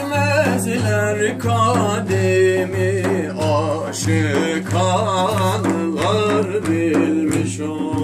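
A male voice singing a Sufi hymn (ilahi), accompanied by a large frame drum beaten in a steady low beat about one and a half times a second.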